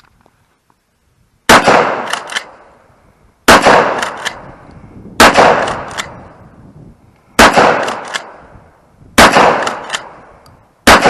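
Six gunshots fired one after another, about two seconds apart, each trailing off over a second or so.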